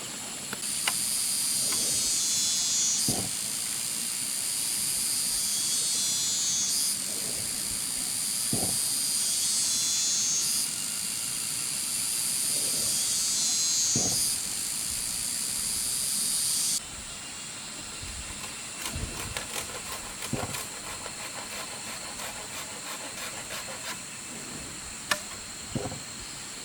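A shrill, high-pitched chorus of insects buzzing, pulsing and shifting every couple of seconds, with a few dull knocks underneath. About two-thirds of the way in it cuts off suddenly, leaving faint scattered clicks and ticks.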